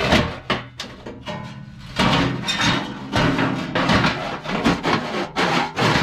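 Sheet-metal squirrel-cage blower wheel knocking, scraping and rattling against its galvanized steel housing as it is worked out by hand. A sharp knock comes at the start, then a dense run of clatter from about two seconds in.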